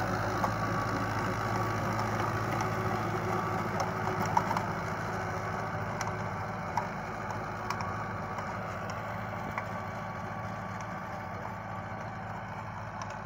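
Fiat 640 tractor's diesel engine running steadily under load while it pulls a rotavator through the soil, growing gradually fainter as the tractor moves away.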